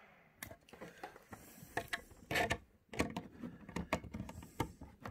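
Handling noise from connecting a DisplayPort-to-HDMI converter and cable to a mini PC: a string of irregular clicks and knocks mixed with brief rubbing and rustling, as the plug is fitted and the phone is moved about.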